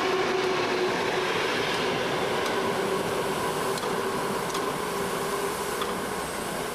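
Passenger train running on the rails through the station: a steady rumble with a faint hum, slowly fading as it pulls away.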